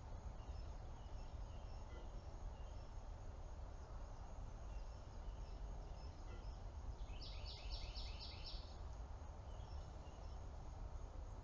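A steady low rumble, with faint scattered bird chirps and, about seven seconds in, a bird giving a quick run of about six repeated high notes.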